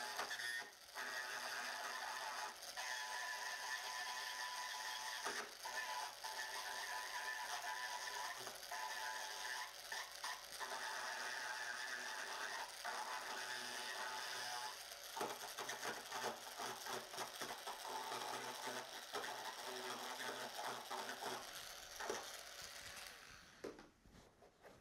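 Handheld rotary tool with a ball-shaped burr running at a steady high whine while grinding away the plastic of a car bumper, the burr cutting in and lifting off in short breaks; it stops near the end. This is the damaged area being ground back so it can be filled with binder.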